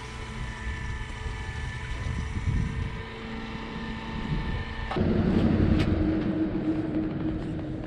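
Electric fuel pump, apparently homemade, running with a steady whine as it pumps fuel into a motorcycle's tank. About five seconds in, the sound cuts to a louder low rumble with wind noise.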